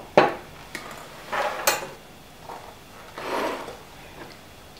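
Wooden spoon knocking and scraping against a glass mixing bowl while stirring mashed banana, sugar and egg: a few separate knocks and scrapes in the first two seconds, then a softer scrape.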